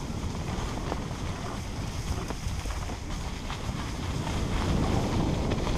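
Wind buffeting a helmet-mounted camera's microphone while a mountain bike rolls down a rough forest dirt trail, with scattered clicks and rattles from the bike over the bumps.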